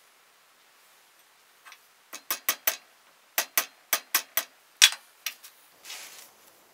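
Runs of sharp, quick clicks, four then five about five a second, a louder single click after them, then a brief soft rustle near the end.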